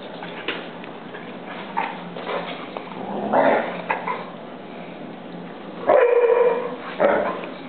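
Dogs play-fighting, growling and yipping. A louder cluster comes about three and a half seconds in, then a half-second high yelp about six seconds in and a shorter burst a second later.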